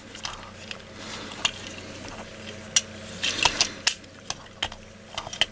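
Plastic parts of a Transformers Deluxe Bumblebee action figure clicking and clacking as it is handled and clipped into robot mode. The clicks are small, sharp and irregular, about a dozen in all, bunched around the middle, over a faint low hum.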